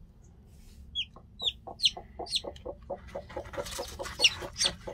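Broody mother hen clucking in a quick, even run of low clucks, about five a second, starting about a second in. A newly hatched chick peeps over it in short, high, falling notes.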